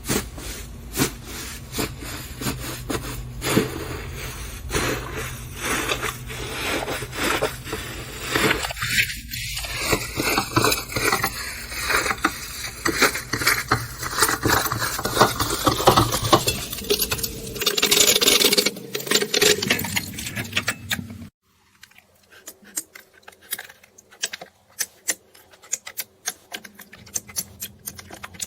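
Slime being handled, with many small irregular crackles and clicks. About 21 s in, the background drops away suddenly and the clicks become sparser.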